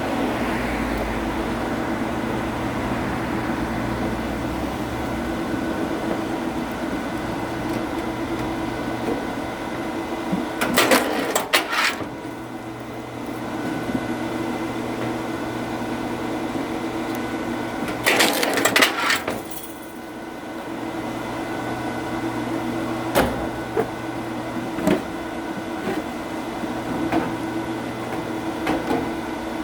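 A motor or engine running steadily while oak logs are split, with two bursts of cracking wood, about a third of the way in and again about two-thirds in, and a few lighter knocks near the end.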